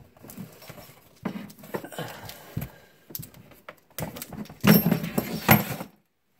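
Handling noise from a washing-machine water supply hose and its threaded fitting being turned and knocked about in hand to find which way the threads go. It is a series of irregular clicks, knocks and rustles, loudest in a short cluster of sharp hits about five seconds in.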